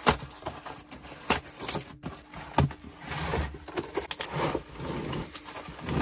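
Cardboard box being opened by hand: the taped end flap pulled free, then the bubble-wrapped tools slid out, with rustling, scraping and a few sharp clicks.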